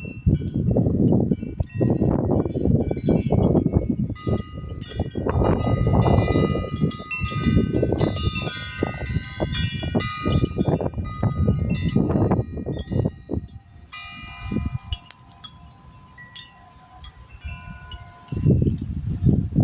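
Wind chimes tinkling and ringing in a gusty wind, with many overlapping high notes. Wind buffets the microphone in loud gusts that ease off for a few seconds past the middle, letting the chimes stand out, then pick up again near the end.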